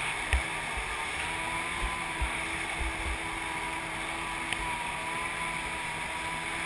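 Kawasaki 550 stand-up jet ski's two-stroke twin engine running steadily at low speed, with a few low thumps in the first half.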